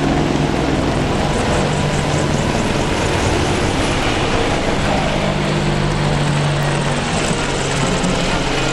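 Several AH-64 Apache attack helicopters flying low overhead in formation: steady, loud rotor and turbine noise, with a low drone that is strongest about halfway through.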